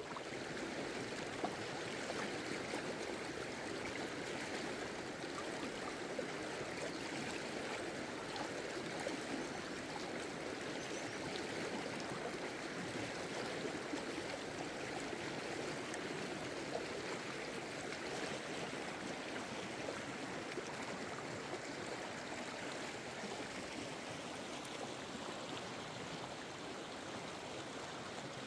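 Shallow mountain stream flowing steadily over stones, a close, even rushing babble of water.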